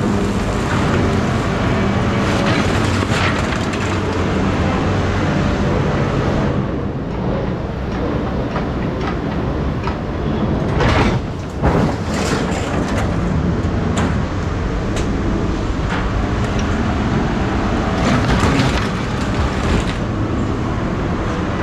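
A vehicle engine running steadily under a dense rumbling noise, with scattered sharp metallic knocks and rattles, a cluster of them about halfway through.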